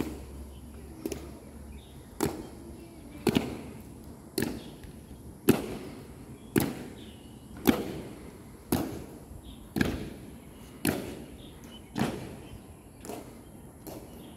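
Honor guard soldiers' boots stamping in unison in a slow ceremonial march on stone paving and steps: a sharp stamp with a short ring about once a second, evenly paced, fourteen or so in a row.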